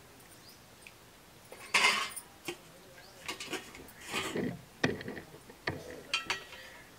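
Small hard objects clattering and knocking several times. The loudest is a sharp clatter about two seconds in, with a few lighter clicks near the end.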